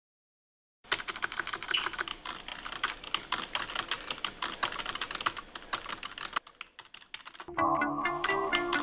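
Rapid, irregular clicking and clattering for about five seconds, then a short lull, then plucked guitar music begins near the end.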